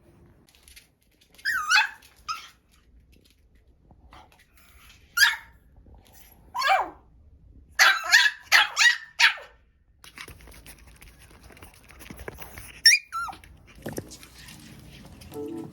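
Pomeranian puppy barking in high-pitched yaps: single yaps spaced out, then a quick run of about five in the middle, and one more near the end.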